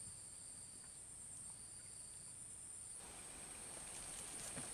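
Insects buzzing steadily at a high pitch, with a second, lower buzz coming and going twice.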